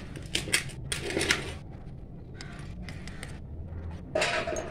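A handful of short clinks and scrapes of miniature cooking utensils and small pots being handled and set down.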